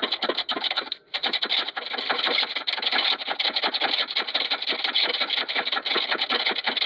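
Manually pumped hydraulic shop press working, a fast, even run of mechanical clicking as the ram is driven down onto a control arm to press out its old bushing.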